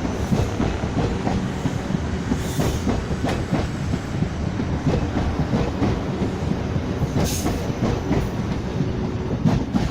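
A Class 458 electric multiple unit running past, a steady rumble with frequent wheel clicks over the rail joints.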